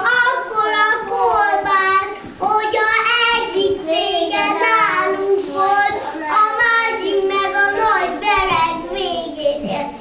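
Young children singing a song, in sung phrases with short breaks between them.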